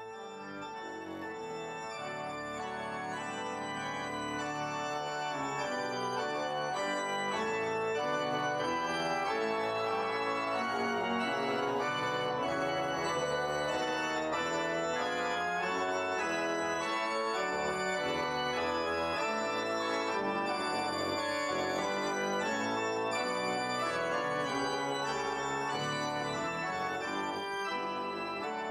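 Pipe organ playing held chords over low bass notes. It grows louder over the first several seconds, then holds at a steady full volume.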